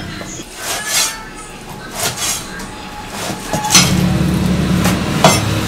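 Cleaver blade striking beef on a wooden chopping block in a few separate strokes, with metallic clinks as the blade gathers the pieces. A low steady hum comes in about two-thirds through.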